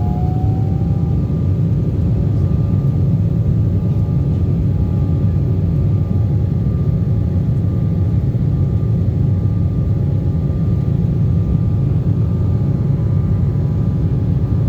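Cabin noise of an Embraer E190 jet airliner on takeoff: a loud, steady engine and airflow rumble with several steady whining tones above it. A rising whine fades out about a second in.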